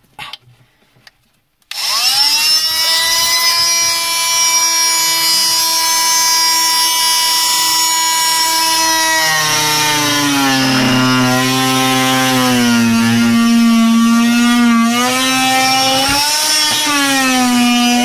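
Fein oscillating multi-tool starting up about two seconds in with a quickly rising whine and running at a steady pitch. About halfway through its pitch drops and wavers as the blade cuts into the wooden cabinet panel under load.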